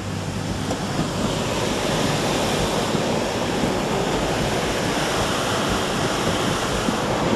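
Floodwater of a swollen river rushing and churning at a bridge: a steady, dense rush of water that grows a little louder about a second in.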